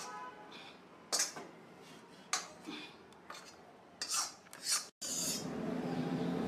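Metal spatula scraping cooked karanji filling out of an iron kadhai onto a steel plate, in a series of short rasping scrapes about a second apart.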